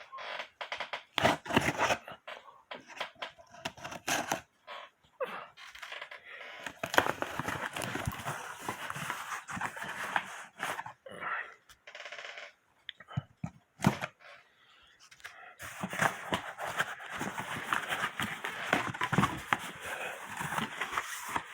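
A shipping package of T-shirts being opened by hand: tearing, rustling and crinkling of the wrapping in irregular bursts, with sharp clicks here and there.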